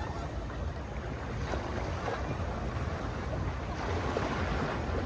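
Sea waves washing onto the shore, with a louder wash building near the end, and wind rumbling on the microphone.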